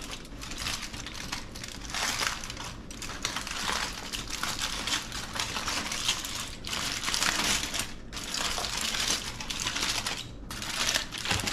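Aluminium foil wrapped around a broiled fish crinkling as it is pulled open, in irregular rustling spells with brief pauses.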